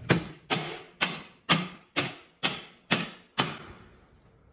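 A hammer striking metal: eight evenly spaced blows, about two a second, each ringing briefly before the next.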